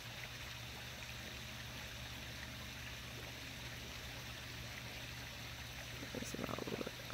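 Faint, steady background hiss with a low hum underneath. There is a brief faint sound about six seconds in. No thunder is heard.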